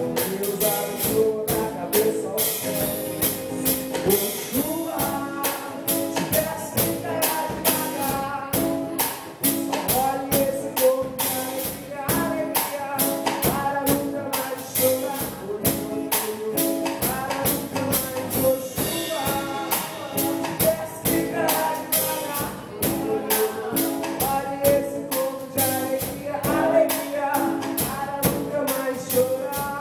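Band music with a fast, steady percussion beat led by tambourine, over pitched instruments, with some singing.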